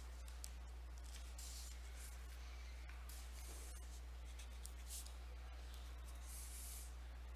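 Faint scratching of a pen drawing a straight line and writing letters on notebook paper, in a few short strokes over a steady low hum.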